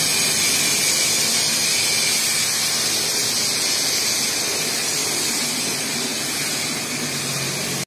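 Self-service car wash equipment running with a steady, loud hiss that is strongest in the high register, cut off abruptly at the end.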